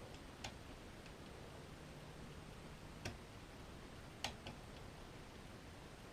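A few faint, sharp metallic clicks, four in all, from a lever pick working the levers inside a Strongbolt five-lever mortice deadlock under light tension.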